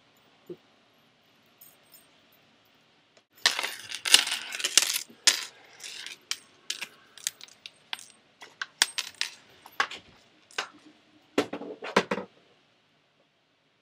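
Short metal chain on the pommel of a Tensa Zangetsu replica sword, jingling and clinking as the sword is handled: a dense run of small metallic clinks that starts about three and a half seconds in and stops about twelve seconds in, with a couple of duller knocks near the end.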